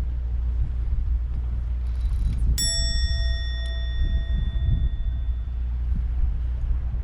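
A small metal bell struck once about two and a half seconds in, ringing out with several clear tones that fade over about three seconds, over a steady low rumble of wind on the microphone.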